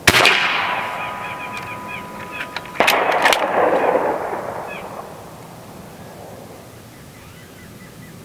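Two air rifle shots about three seconds apart, each a loud crack trailing off in a long echo. A steady tone rings on after the first shot.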